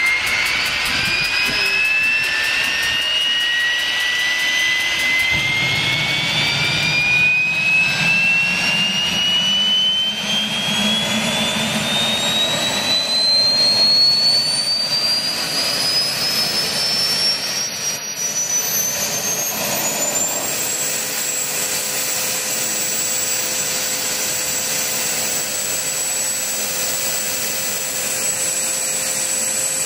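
Homemade small gas turbine engine spooling up: its whine rises steadily in pitch for about 20 seconds, with a low rumble underneath, then levels off at one high steady pitch.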